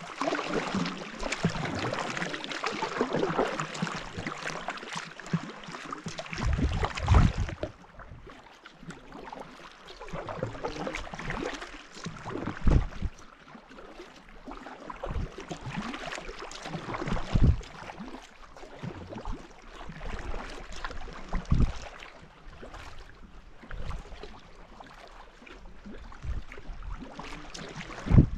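Kayak paddle blades dipping and pulling through lake water, a splashing swell with each stroke every couple of seconds. A denser, steady rush of water and wind on the microphone fills the first seven seconds or so.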